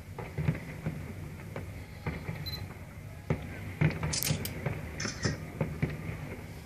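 Fireworks bursting at a distance: irregular pops and dull bangs, a few every second, with two short hissing crackles about four and five seconds in.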